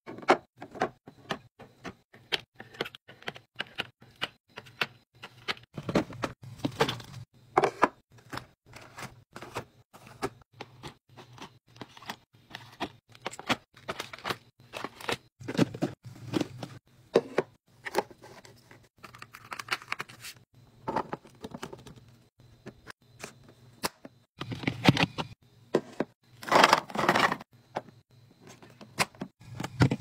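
Irregular clacks and knocks of plastic bottles, yogurt cups and food containers being set into clear plastic fridge organizer bins and on the shelves, with a couple of longer, louder scrapes near the end.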